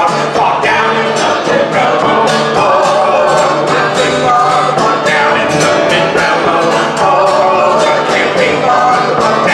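A man and a woman singing a song together over a steadily strummed acoustic guitar.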